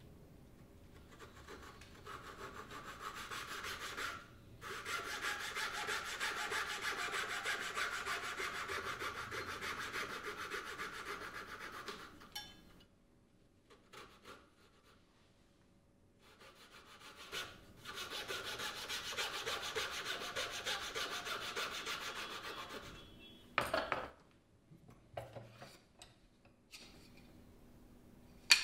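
Fret saw with a fine blade cutting through a small block of wood in quick, steady strokes, in two long runs with a quiet pause between them. A few light knocks follow near the end.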